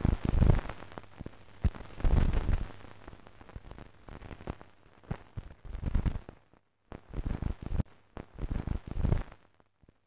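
Soundtrack of an experimental animated film: irregular bursts of crackling, sputtering noise with low thuds and sharp clicks, broken by short silences in the second half, over a thin steady high whine.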